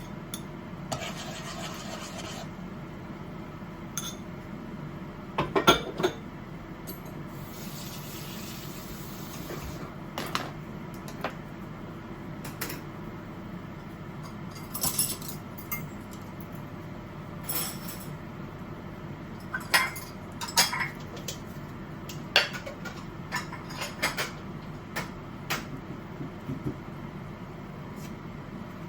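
Dishes, pots and cooking utensils clinking and knocking at irregular intervals during meal preparation, over a steady low hum. The loudest clatters come about six seconds in and again a little after twenty seconds.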